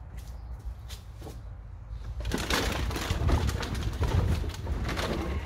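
Plastic bottles crackling and clattering, with gravel crunching underfoot, start about two seconds in and keep going. Beneath them is a low rumble.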